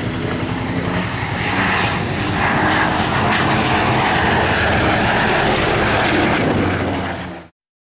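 Gloster Gladiator biplane's Bristol Mercury nine-cylinder radial engine running steadily in a low flypast, growing louder about a second and a half in. The sound cuts off suddenly near the end.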